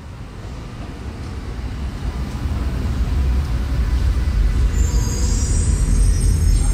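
Berlin U-Bahn train rumbling deep and growing steadily louder, with a high-pitched metallic squeal joining about five seconds in.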